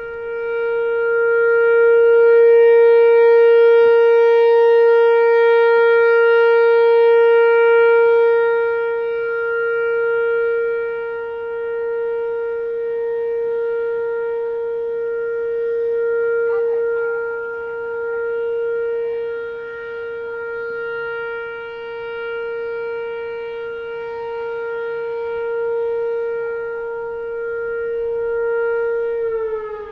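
Whelen Vortex R4 outdoor warning siren sounding a steady tone on full alert, its loudness swelling and fading over several seconds as the siren head rotates. Near the end the pitch starts to fall as the siren begins to wind down.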